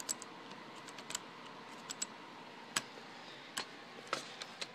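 Sharp, irregular clicks, about nine of them, from the sight adjustment knob of an airsoft M4 carbine being turned and the plastic-and-metal gun being handled.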